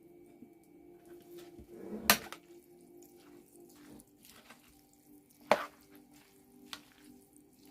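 A few sharp clinks and knocks of kitchen utensils against dishes, the loudest about two seconds in and two more near the end, over a faint steady hum.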